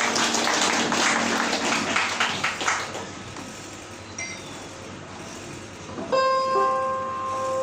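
Audience applauding after a poem, fading out over the first three seconds. About six seconds in, instrumental music begins with held notes.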